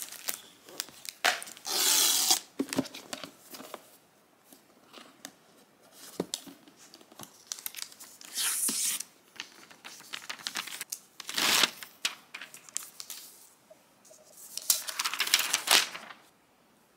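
Paper protective wrap being peeled and torn off a new Apple iPad during unboxing, with crinkling and small taps and clicks from the cardboard box and tablet being handled. The tearing comes in several short bursts, the longest near the end.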